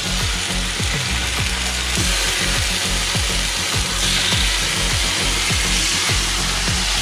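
Pork medallions searing in a hot pan: a loud, steady frying sizzle that grows stronger about four seconds in.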